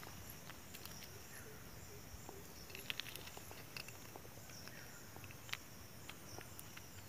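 Faint, steady insect chorus, with a few scattered small clicks and rustles as snails are picked by hand out of wet mud and leaf litter.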